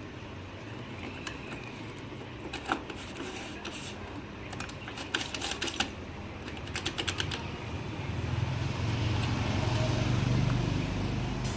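Metal clutch parts of a Pulsar 220 clinking and clicking as they are handled and fitted: scattered sharp clicks, bunched together in the middle. A low machine hum swells up in the background over the last few seconds.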